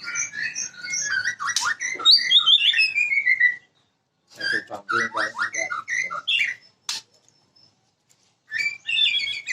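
White-rumped shama singing: three bursts of fast, varied notes sliding up and down, with short pauses between them, and a single sharp click about seven seconds in.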